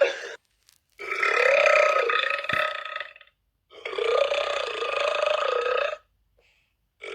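A person burping repeatedly: the tail of one burp right at the start, then two long, drawn-out burps of about two seconds each with a wavering pitch, separated by short silences.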